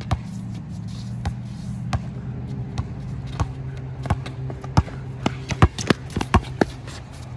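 Basketball being dribbled on a hard outdoor court: sharp bounces about every half-second to second, quickening to a fast run of bounces around five to six seconds in.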